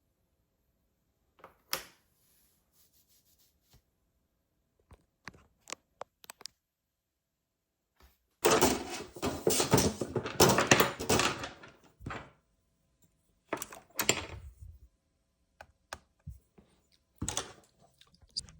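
Hands working on a laptop: scattered small clicks and knocks, with a louder burst of rustling and scraping lasting about three and a half seconds near the middle, then a few more knocks.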